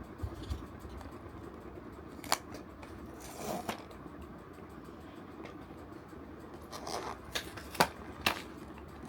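Blind-box packaging being opened and handled by hand: scattered sharp clicks and taps with a short rustle, with more clicks near the end.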